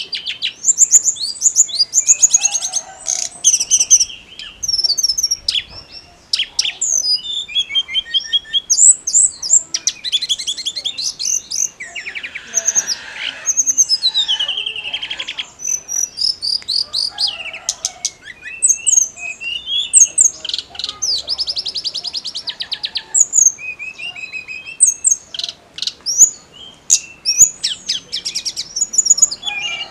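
Tledekan gunung songbird singing a busy, near-continuous song of rapid high chirps, sharp whistled notes and fast buzzy trills.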